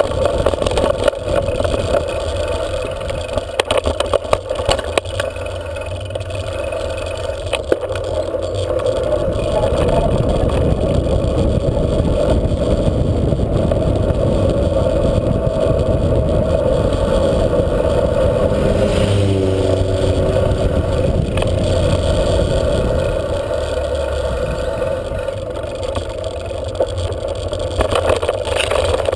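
Wind rushing over a bike-mounted camera's microphone and bicycle tyres rolling on the road, with rattles and knocks from the bike jolting over loose gravel in the first few seconds and again near the end.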